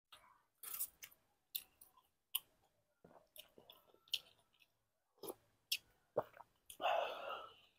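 Close-miked eating: a man chewing and sipping soup from a spoon, with scattered short wet clicks and smacks and a longer, louder stretch of sound about seven seconds in.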